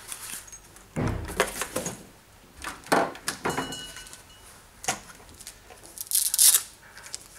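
Handling noises: a long lance drawn out of its fabric carry case with rustles and a dull knock, then plastic packaging crinkling as coiled clear tubing is unwrapped near the end.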